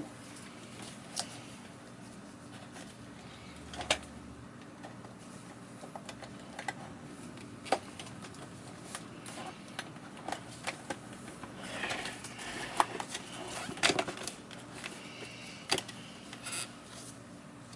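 Plastic vacuum cleaner parts being handled: scattered light clicks and knocks, with a stretch of scraping and rustling about twelve seconds in.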